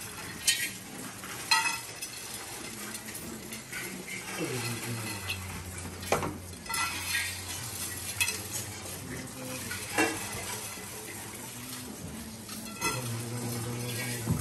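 Rice being heaped and swept on metal mandala offering plates by many hands at once. A continuous grainy hiss of grains running and scraping over the metal is broken by a handful of sharp metallic clinks that ring briefly.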